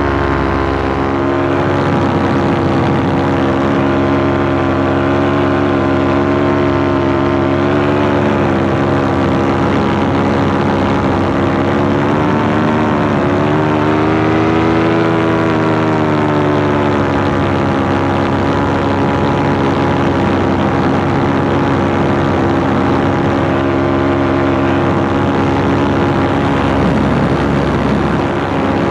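Paramotor engine and propeller running steadily in flight, a loud drone whose pitch rises and then falls back about halfway through.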